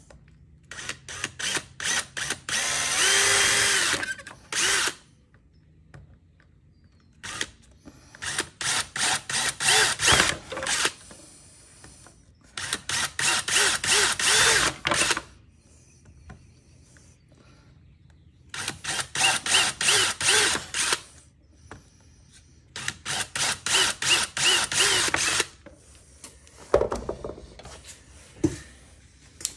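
Cordless drill boring holes through a plastic truck door handle to rough out a cutout along a marked outline, the trigger pulsed in quick short bursts. There are five runs of bursts with pauses between them, then a couple of knocks near the end.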